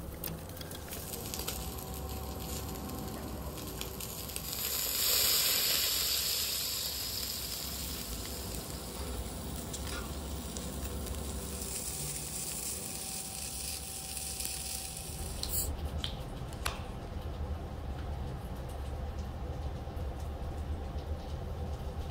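Meat and scallops sizzling on the wire mesh of a tabletop barbecue grill, a steady hiss that swells loudest about five seconds in. About two-thirds of the way through the sizzle cuts off suddenly, leaving a low hum and a few sharp clicks.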